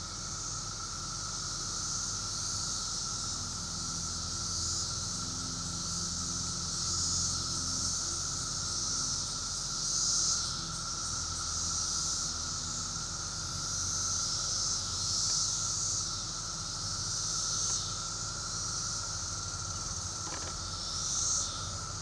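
Chorus of 17-year periodical cicadas: a continuous high buzzing drone that swells and fades, over a steady lower whine.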